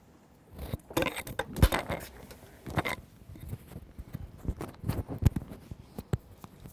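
Irregular knocks, taps and rustles from a pen and paper being handled on a desk, starting about half a second in, the loudest knock about a second and a half in.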